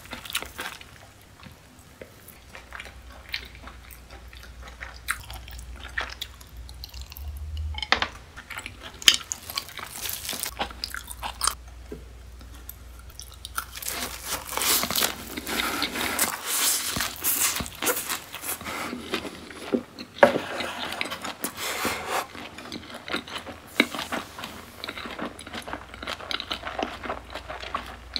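Close-miked eating sounds from beef tartare and sea urchin nigiri. First come scattered small clicks and handling noises as lemon is squeezed over the sushi. About halfway in comes a bite, followed by a dense stretch of chewing that thins out near the end.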